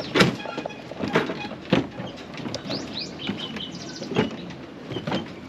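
Footsteps knocking and clanking on a swaying wire suspension footbridge, a handful of irregular sharp knocks, the loudest just after the start. Birds chirp in short rising calls around the middle.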